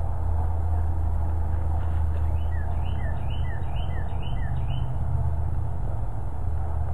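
Steady low rumble throughout. A small bird sings a quick run of about six repeated chirping notes starting about two seconds in.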